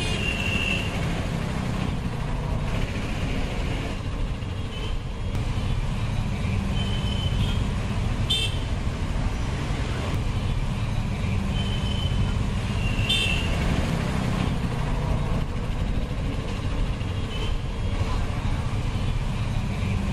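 Steady road traffic rumble with short vehicle horn toots every few seconds.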